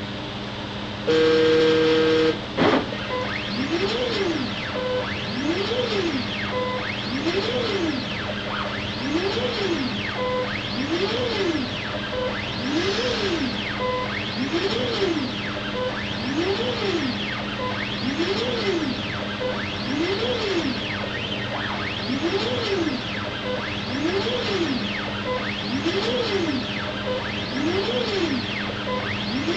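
CNC router's stepper motors whining as the gantry runs a dovetail-tails program as an air cut: the pitch rises and falls over and over, about once every second and a half to two seconds, over a steady low hum. About a second in, a loud steady tone sounds for about a second and a half and ends with a click.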